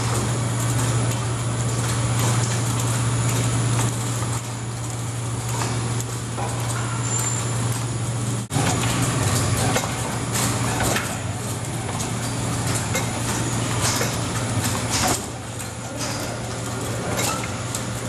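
Stainless-steel rotary inside/outside bird washer running: a steady low machine hum under a constant hiss, with a few knocks and clanks. The sound cuts out for an instant about eight and a half seconds in.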